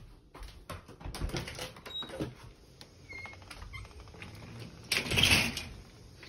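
Walking footsteps and phone handling clicks, then a short, loud scraping rattle about five seconds in: a metal mesh security screen door being opened. A few brief high chirps sound in between.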